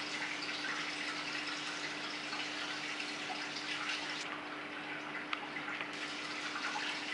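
Aquarium water splashing and trickling steadily over a steady low hum. The splashing dulls for a moment about four seconds in.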